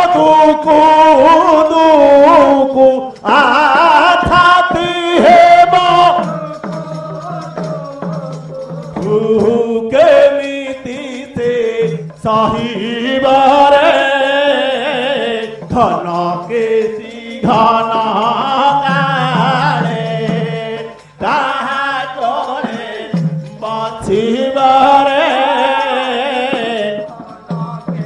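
Odia Pala devotional singing into a microphone: sung phrases with short breaks between them, over a steady low tone, with a hand drum played in the first few seconds.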